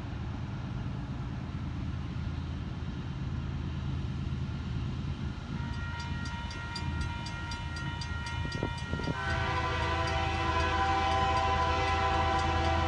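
Diesel locomotive rumbling as a train approaches, with its Nathan K3L three-chime air horn sounding: faint from about halfway through, then loud and held near the end.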